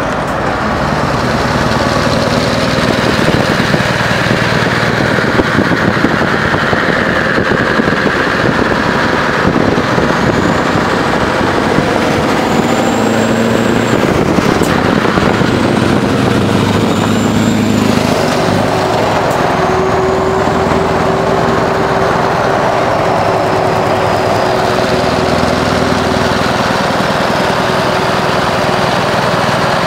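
Scania R500 truck's V8 diesel engine running steadily as the truck drives, heard close alongside with tyre and road noise. A steady whine joins a little past the middle.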